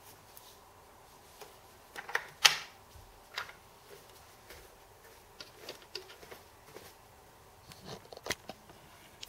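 Irregular small plastic clicks and taps as toy stamps and their lids are handled and fitted back into a plastic toy stamp case, with a cluster of sharper clicks about two seconds in and another near the end.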